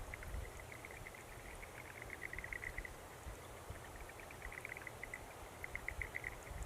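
Faint dawn birdsong: phrases of rapid, high chirps repeated every second or so.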